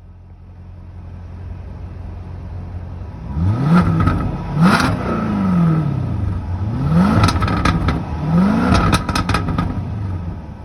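2017 Jaguar F-Type R's supercharged 5.0-litre V8 idling, then revved about four times in quick succession, the pitch rising and falling with each blip. Sharp crackles and pops come from the exhaust during the revs.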